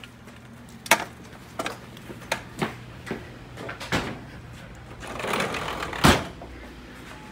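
Irregular knocks and footsteps of people hurrying indoors. About five seconds in there is a rustle, then one loud thump about six seconds in.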